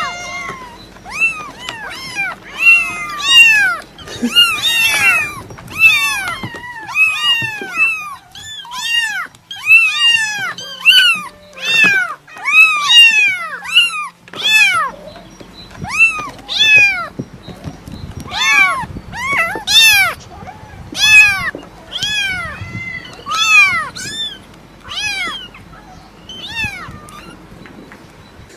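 Cats meowing over and over: short, high-pitched calls that each rise and then fall, two or three a second, often overlapping one another.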